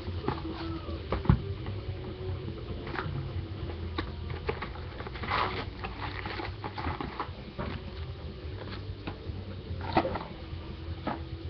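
Plastic shrink wrap crinkling as it is stripped off a trading-card box, then the cardboard box being opened and handled, with rustling, small ticks and a sharp knock about a second in and another near the end.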